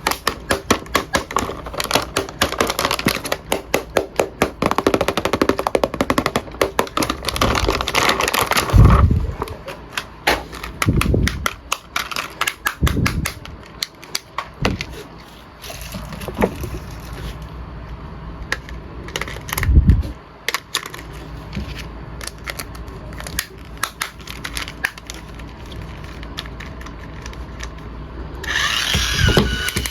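Rapid clicking and rattling of hard plastic for about nine seconds, then scattered knocks and thumps, from action figures and their packaging being handled.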